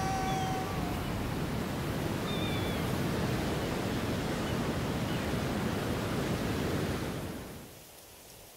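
Steady rushing of ocean surf and wind over open sea, with a held musical note dying away in the first second and a couple of faint short chirps a couple of seconds in. The rushing fades out over the last second or so.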